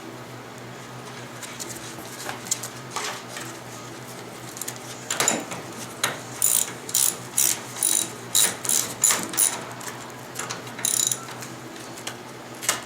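Hand ratchet wrench being worked: a run of about eight quick clicking strokes in the middle, with a few single clicks before and after.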